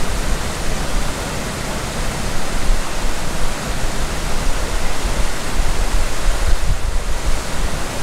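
Wide, multi-tiered river waterfall: water rushing steadily over several stepped rock ledges, a continuous even rush with no let-up.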